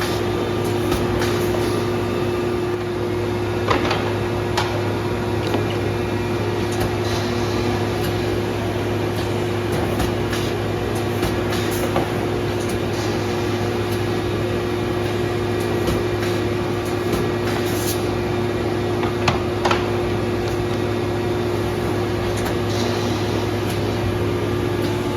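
HOMAG Drillteq D-200 CNC boring, gluing and dowel-inserting machine running: a steady machine hum with a few sharp clicks and knocks, once near four seconds in and twice about two-thirds of the way through.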